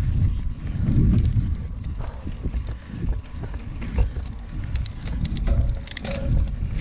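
Mountain bike being ridden fast over dirt singletrack: a steady low rumble of tyres on the ground and wind, broken by scattered sharp clicks and rattles from the bike.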